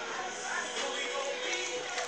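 Background music playing at a steady, moderate level.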